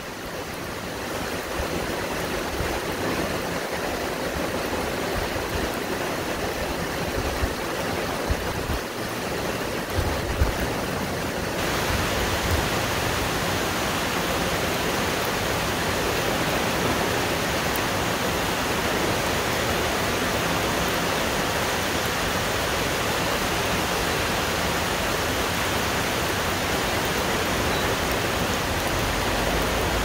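Heavy rain pouring steadily on forest trees, with strong wind, as a continuous rushing hiss. A few low gusts come through around ten seconds in. Shortly after, the hiss grows fuller and brighter and then holds steady.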